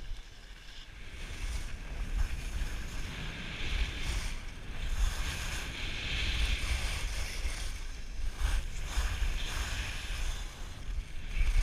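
Skis hissing and scraping over packed snow during a downhill run, with wind rumbling on the camera's microphone; it builds after about a second as speed picks up.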